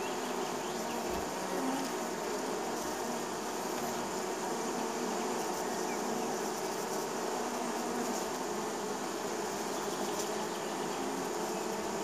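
Many honey bees buzzing as they come and go at a hive entrance: a steady, dense hum of wings, with the pitch of passing bees wavering.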